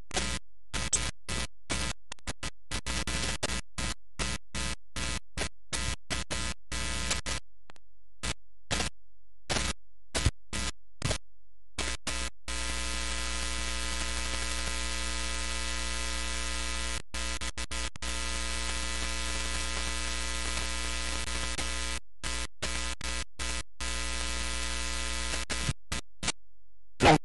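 Steady electronic buzz with hissing static and many overtones. It cuts in and out rapidly for about the first twelve seconds, then holds steady with only a few brief dropouts.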